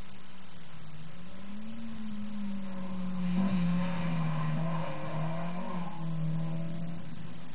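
Toyota 2TG 1600 twin-cam four-cylinder engine running hard at high revs, heard from inside the car's cabin. Its pitch rises, then sags and wavers, and it gets louder and harsher for a few seconds in the middle.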